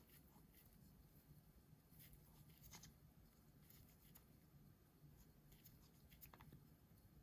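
Near silence: room tone with a low hum and a few faint, short clicks and scrapes of small parts being handled.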